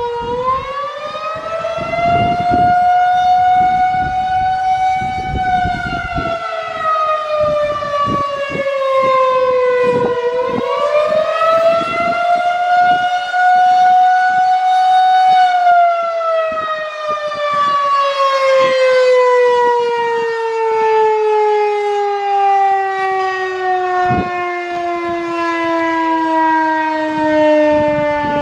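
Federal Signal 2001-130 rotating outdoor warning siren sounding a wavering attack signal: its pitch rises over about five seconds, falls, rises again, then sinks slowly and steadily through the second half as the siren winds down.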